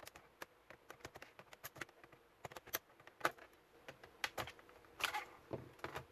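Dell Inspiron laptop keyboard being pried out of its plastic frame with a pry tool: a run of irregular plastic clicks and snaps as the tool works along the edge, the keys are pressed and the retaining clips let go, with the strongest snaps about three and five seconds in.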